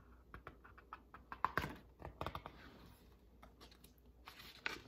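Faint handling of a large picture book's paper pages as the page is taken hold of and turned: scattered small taps and rustles, with a few louder clicks about a second and a half in and again near the end.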